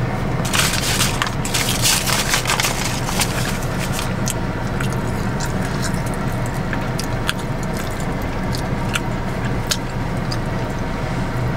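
Close-miked eating of a crispy fried chicken sandwich: a cluster of crackling crunches from about half a second to two and a half seconds in, then scattered sharp clicks of chewing. Under it runs a steady low hum inside the car.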